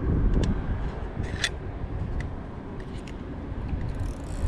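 A few scattered clicks and ticks from handling a Yashica Mat 124 twin-lens reflex camera, over a steady low rumble of wind on the microphone.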